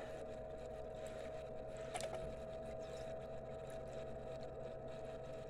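Small water pump running with a faint steady hum while water trickles slowly over a sluice mat, the flow turned down to barely moving. A light tick about two seconds in.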